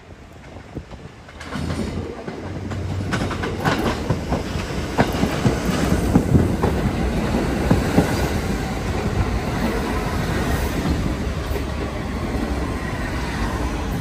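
Staten Island Railway subway train running in along the platform close by, its wheels clattering over the track. There is a run of sharp clicks and squeals in the middle, and a whine falls in pitch near the end.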